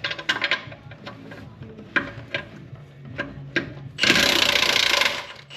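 Wrench work on a car's underside: a string of sharp metallic clicks and taps, then about four seconds in a loud rasping mechanical burst lasting about a second.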